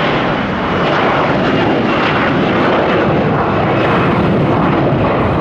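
Airbus A321-211's CFM56-5B turbofan engines at take-off thrust as the airliner climbs away just after lift-off: a loud, steady rushing noise with a faint high whine.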